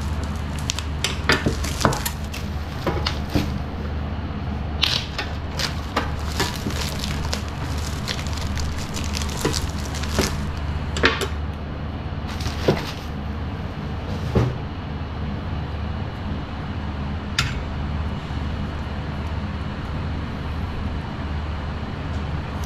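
Packaging being handled and unpacked by hand, giving scattered clicks, knocks and rustles, most of them in the first half, over a steady low hum in the background.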